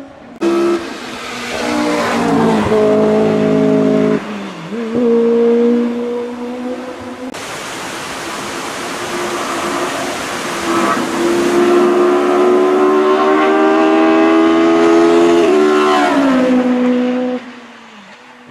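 Hill-climb race car engines at full throttle, revving up and dropping sharply at gear changes, across a few spliced clips. The longest pull rises steadily for about five seconds before a shift, and the sound falls away near the end.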